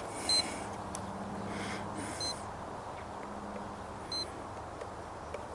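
Short, high electronic beeps, three in all about two seconds apart, from radio-control gear, over a faint steady background hum.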